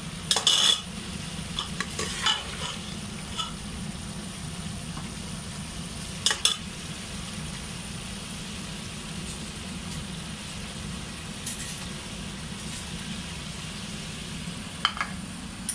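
Mutton tripe curry bubbling in an open aluminium pressure cooker, with a steady sizzling hiss over a low hum, while a steel ladle stirs and clinks against the pot a few times: near the start, about two seconds in, around six seconds and near the end.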